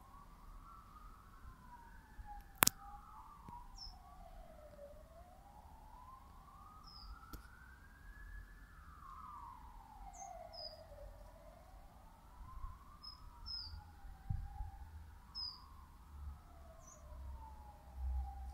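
A siren wailing slowly up and down, with short high chirps from small birds now and then. A single sharp click stands out about two and a half seconds in.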